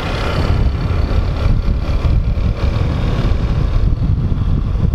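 Yamaha motorcycle riding along a street: the engine runs steadily under a heavy, fluctuating low rumble of wind on the microphone.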